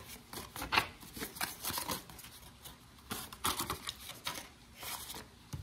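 Paper reading cards being handled and laid down on a table: irregular flicks and taps of card against card and table, in several short clusters.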